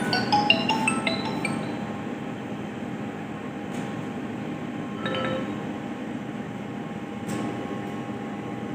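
A quick run of soft chime-like notes at the start, and another short run about five seconds in, over a steady hiss.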